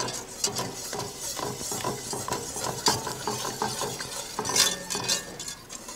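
A wire whisk beating a roux-thickened chicken broth sauce in a stainless steel pot: a fast, continuous run of light scraping ticks as the wires brush the pot's bottom and sides.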